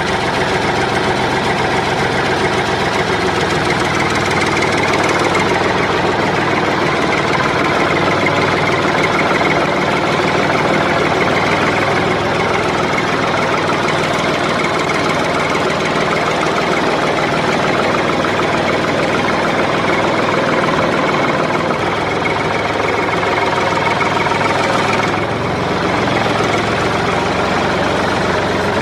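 Tractor engine sound running steadily, with a slight drop in level about 25 seconds in.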